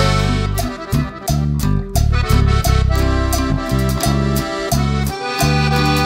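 Upbeat background music with a steady beat, sustained melody notes and a moving bass line.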